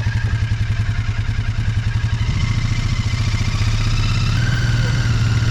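A vehicle engine running steadily, with a fast, even pulse over a low hum; it picks up slightly about two seconds in.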